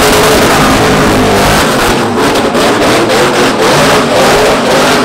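A drift car's engine revving hard with its pitch wavering up and down, over the noise of rear tyres spinning and screeching through a smoky donut. There is a stretch of rapid pulsing in the middle.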